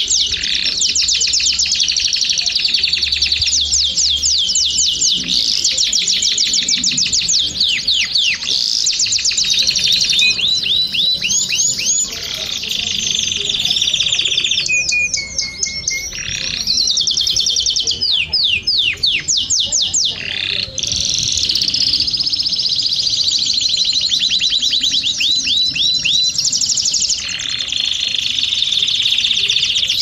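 Domestic canary singing a long, continuous song of rapid trills and runs of quick downward-sweeping notes, with a couple of brief dips in the song.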